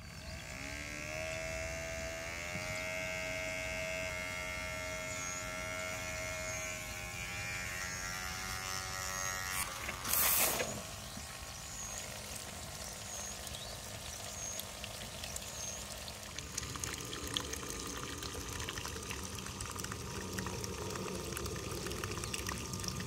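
Small electric motor of a toy mini water pump whirring up to speed, its whine rising over the first two seconds and then holding steady. About ten seconds in there is a brief loud noise, then water pours and splashes out of the pump's outlet.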